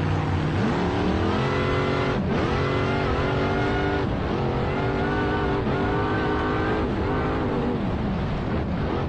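A motor engine revving up several times. Each time its pitch climbs and then drops sharply before it climbs again. Near the end the pitch wavers and falls.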